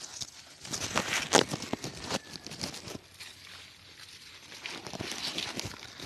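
Grass and leafy plants rustling and brushing close against the phone's microphone as someone pushes through dense undergrowth, in uneven crackly rustles that are loudest about a second in.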